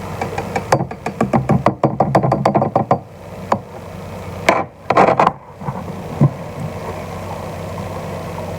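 Pepper being shaken into a pot of sauce: a quick run of rattling shakes lasting about two seconds, then two louder knocks, over a steady low hum.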